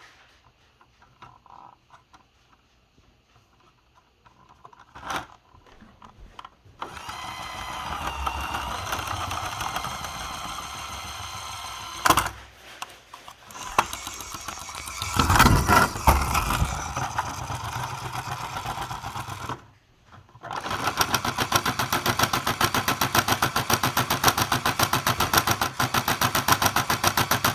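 A small motor running: a steady mechanical run begins about seven seconds in, with a couple of louder surges, stops briefly near twenty seconds, then runs again with a fast, even pulsing.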